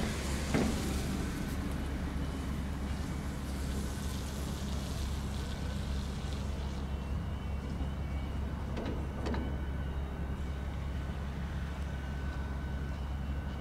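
Jet airliner engines at a distance: a steady low rumble with a faint high whine, and two short knocks, one just after the start and one about nine seconds in.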